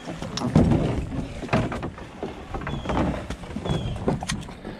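A canoe being dragged up a steep dirt bank: irregular scraping, rustling and knocking of the hull against earth and dry brush, picked up through the hull by a camera mounted on the boat.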